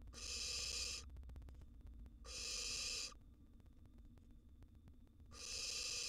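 Barn owl nestlings giving three breathy hissing calls, each about a second long and a couple of seconds apart, the last starting near the end. These are the hissing 'snore' food-begging calls of young barn owls.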